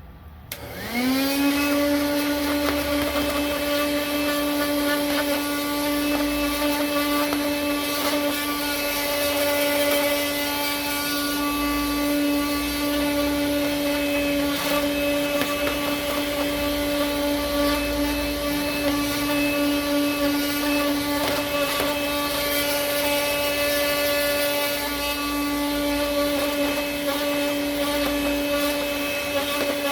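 12 V car vacuum cleaner, powered from a PC ATX power supply, switched on with a click: its motor spins up in about a second to a steady high whine and keeps running evenly.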